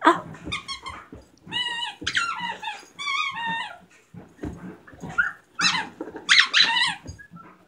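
Dog's squeaky toy squeaking over and over as the dog chews on it, several squeaks in the middle and another run near the end, with low play growling from the dog.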